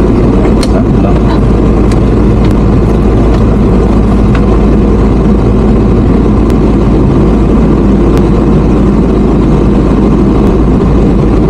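Riding a motor scooter: steady engine and road noise under heavy wind rumble on the microphone.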